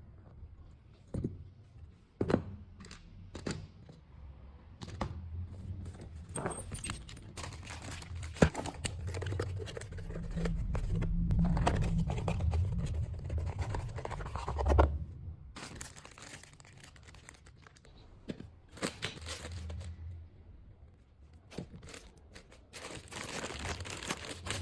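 Irregular clicks, knocks and rustling of impact wrench parts and tools being handled during servicing, with a louder, busier stretch in the middle.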